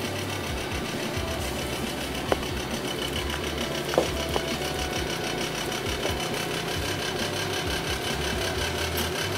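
Home cotton candy machine running: its small motor spins the heated sugar head with a steady hum and a fast, even flutter. A couple of light clicks come about two and four seconds in.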